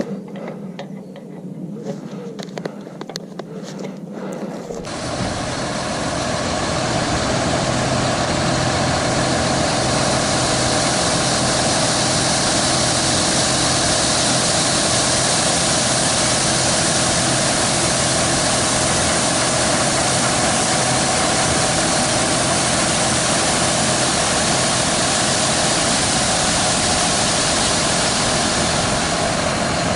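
Heavy farm machinery running at a steady pace with a constant hum. It comes in abruptly about five seconds in, after a quieter stretch of light clicks.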